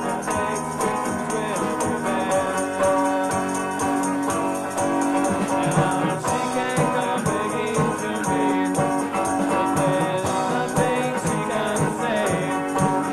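Home-made 1970s garage-rock recording: guitars and a fuzz bass part over a steady drum beat with busy, rattling percussion, and some singing.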